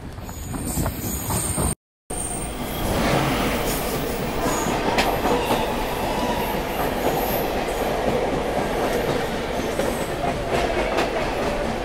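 Passenger train running on the rails: a steady rumble of wheels and coaches with a few knocks. The sound cuts out completely for a moment about two seconds in, then the rolling noise carries on evenly.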